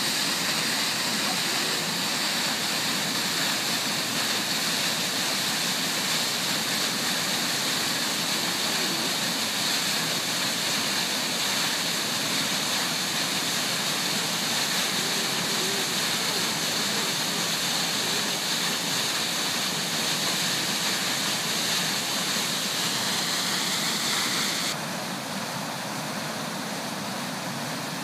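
Waterfall rushing steadily, an even roar of falling water; about 25 seconds in it drops a little in level and sounds duller.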